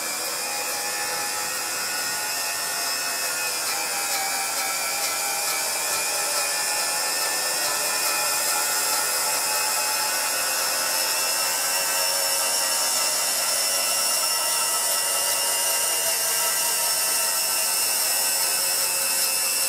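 Model steam turbine locomotive running along its track: the 60 mm single-wheel steam turbine whines at high speed over a steady hiss of escaping steam. The whine is made of several steady tones that rise a little in the first few seconds and then hold.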